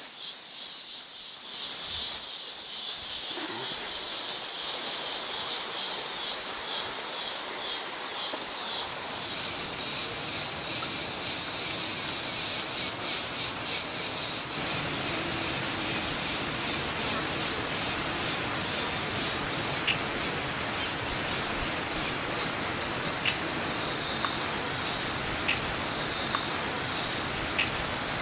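Forest insects, crickets or cicadas, chirping in a fast, even, high-pitched pulse. A high steady whistle-like call of a second or so cuts in three times: about ten seconds in, about twenty seconds in, and at the very end.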